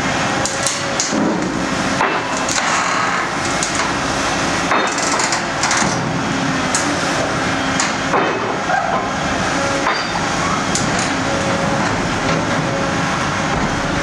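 Volvo EC 950F demolition excavator running under load while its MBI SH 1100R Eagle III scrap shear cuts and crushes scrap, with frequent sharp cracks, crunches and metallic knocks over the steady engine and hydraulic noise.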